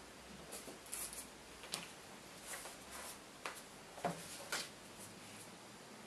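Scattered light clicks and taps, about half a dozen over a few seconds, from the refitted bottom cover of a MacBook Pro being pressed into place and its small screws being picked up by hand.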